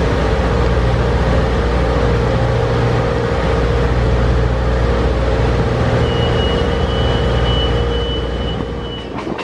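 A train in motion heard from on board: a steady heavy rumble with a low drone. A thin, high, steady squeal joins about six seconds in and stops shortly before the end.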